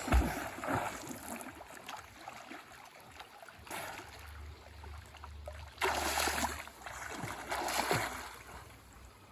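Water splashing and sloshing as people swim, with louder splashes about six seconds in and again near eight seconds.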